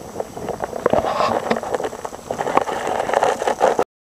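Wind buffeting and handling noise on a handheld camera's microphone, full of small clicks and knocks, cut off abruptly near the end.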